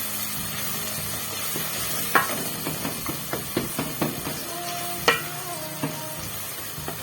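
A spoon stirring githeri in a cooking pot: a run of knocks and scrapes against the pot, loudest about two seconds in and again near five seconds, over a steady sizzle of the stew cooking.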